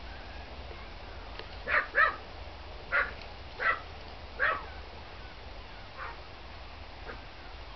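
Small dogs barking: five short, sharp barks, the first two close together, over about three seconds, then two faint barks near the end.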